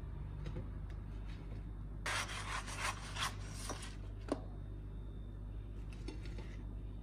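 Plastic spatula scraping across a nonstick frying pan while fried potato wedges are scooped up, in one burst of scraping from about two seconds in to nearly four, then a single light knock. A steady low hum lies under it.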